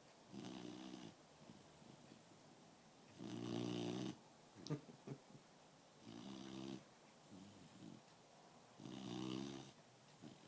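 A dog snoring in its sleep: four snores about three seconds apart, the second the loudest, with a few short clicks just after it.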